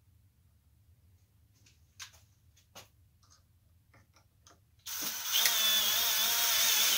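Cordless drill running for about two seconds near the end, drilling into the wooden figurine, its motor whine wavering in pitch. Before it, only a few light handling clicks.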